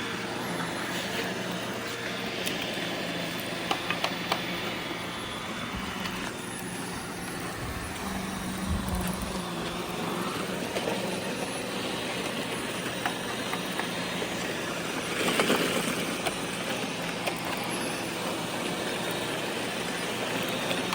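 Robot vacuum cleaners running, motors and brushes giving a steady whirring hum, with scattered small clicks and a louder burst of noise about fifteen seconds in.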